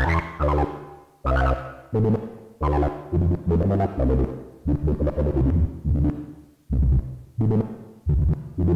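Electronic music played on hardware synthesizers: a sequenced Moog Werkstatt bass line whose filter is swept by LFOs, the notes striking bright and fading in a steady pulsing rhythm, with Digitakt drum-machine parts in the mix.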